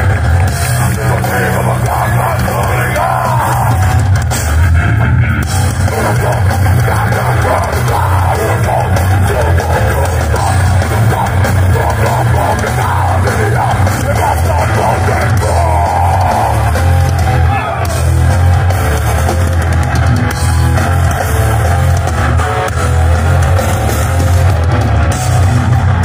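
Heavy metal band playing loud live: distorted electric guitars, bass and drum kit, with a vocalist singing into the microphone, heard from within the crowd.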